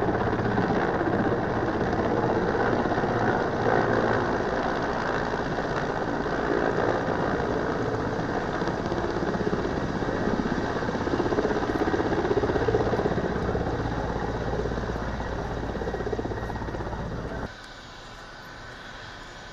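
Mi-17 military helicopter landing, its rotor and turbine engines running loud and steady with a low, rhythmic beat of the blades. About seventeen seconds in the sound drops suddenly to a much quieter level.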